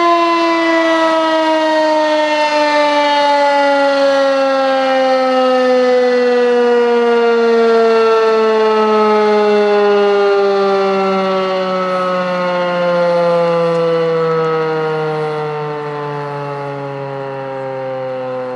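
Federal 2001-SRN outdoor warning siren winding down at the end of its test signal. Its loud, harmonic-rich tone falls slowly and steadily in pitch, fading a little near the end.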